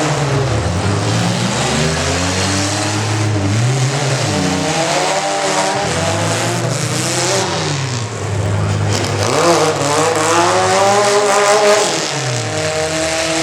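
Compact pickup truck engine running hard and revving, its pitch rising and falling repeatedly, with a long climb in revs near the end.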